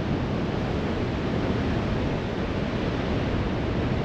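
Strong wind buffeting the microphone, a steady low rumbling rush mixed with the wash of surf on the beach.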